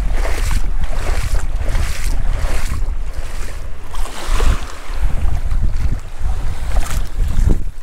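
Wind buffeting the microphone with a heavy low rumble, over small waves lapping and sloshing in shallow open water.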